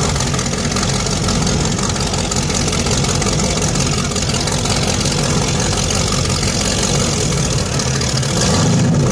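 Twin supercharged engines of a 36-foot Skater power boat idling with a steady, deep rumble as the boat moves slowly off the dock. The sound gets a little louder near the end.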